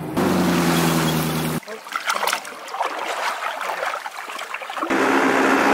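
An engine idling steadily, cut off abruptly about a second and a half in, then a stretch of hiss with scattered clicks and knocks. About five seconds in, an idling engine starts up again, there the boat's Evinrude outboard motor.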